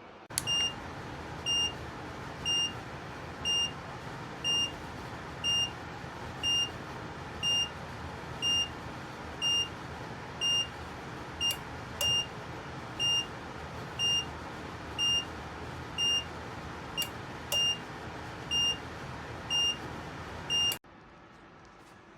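Electric ceramic fan heater's fan running steadily while the unit gives a short high-pitched beep about once a second, with a few sharp clicks partway through. The fan noise and the beeping cut off suddenly near the end.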